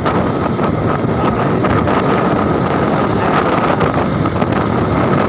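Truck running along the road at speed: steady engine and road noise with wind buffeting the microphone, and a steady high whine throughout.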